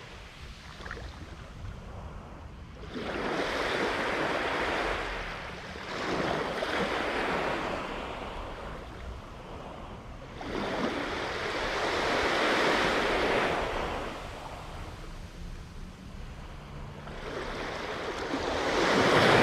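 Small waves washing up on a sandy beach, swelling and fading about four times, over a low rumble of wind on the microphone.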